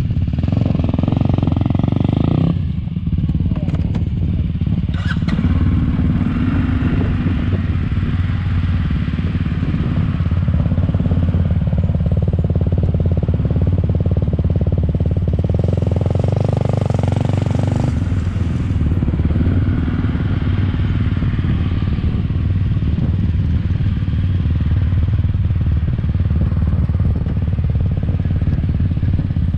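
Quad bike (ATV) engine running steadily at low riding speed, heard from the quad it is mounted on, with the engines of other quads riding close by.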